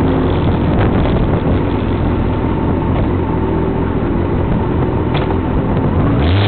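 Motorcycle engine idling steadily close by, with a few clicks and knocks from the camera being handled. Near the end the engine revs up and drops back.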